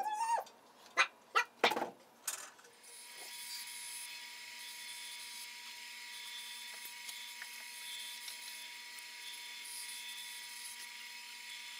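A cat's meow trailing off at the start, then a few short light knocks. From about three seconds in there is only a steady hiss with a faint constant electrical hum from the workshop.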